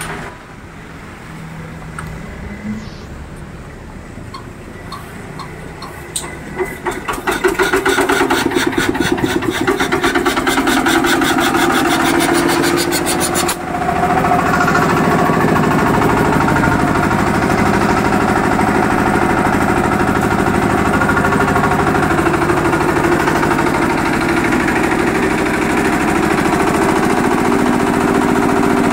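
Yanmar TF155 single-cylinder diesel engine being started: after a few seconds of quieter, irregular sound it fires with strong, quickening thumps about six seconds in. It then runs steadily, belt-driving a Puma 10 HP piston air compressor pump that is pumping up a 1000-litre tank for a pressure test.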